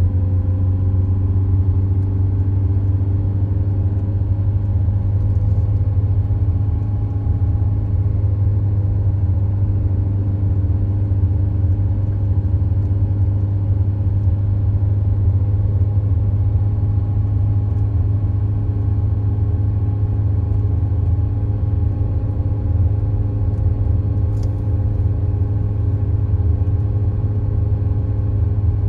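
Steady low rumble of a car driving at an even speed, heard inside the cabin: road and engine noise with a faint steady hum above it.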